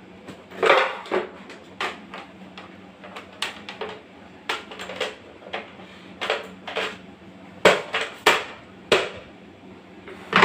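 Irregular plastic clicks and knocks, roughly two a second, as the lid and top parts of a white plastic kitchen appliance are handled, fitted and set down on the counter. A faint steady hum runs underneath.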